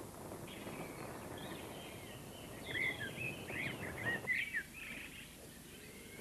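Several birds chirping and singing in quick, overlapping calls. A low rumbling noise underneath cuts off suddenly about four seconds in, leaving the birdsong on its own.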